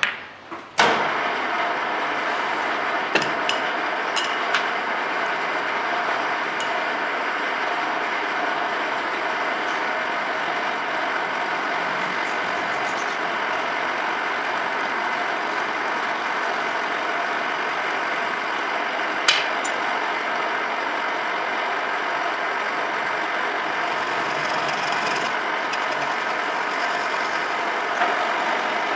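A few sharp metal knocks, then a metal lathe starts about a second in and runs steadily, spinning a steel bar in its chuck, with an occasional click.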